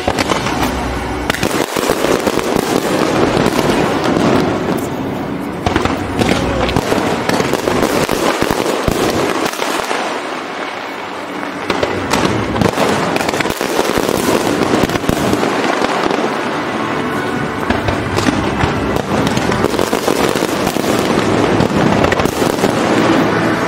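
Aerial fireworks display going off, many bangs in quick succession overlapping one another, easing briefly about ten seconds in before building again.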